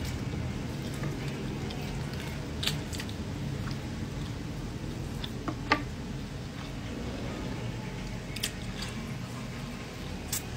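Eating with bare hands: fingers pulling apart meat on a plate and a mouth chewing, heard as a few small wet clicks and squishes spaced a couple of seconds apart, over a steady low hum.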